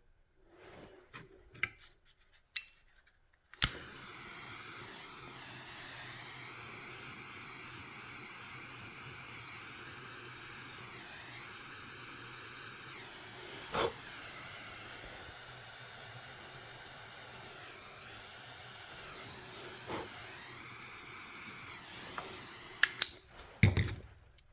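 A few sharp clicks, then a heat gun switched on to shrink heat-shrink tubing over crimped wire connectors. It blows with a steady hiss for about twenty seconds, its pitch wavering now and then, and it is switched off with a click near the end.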